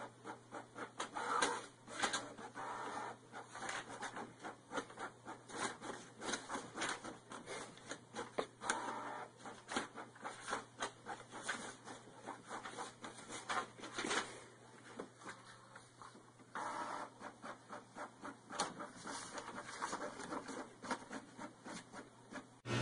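Canon inkjet printer printing: the print head and paper feed run in quick irregular spurts of clicking and whirring, over a steady low hum, with a short lull about two-thirds of the way through.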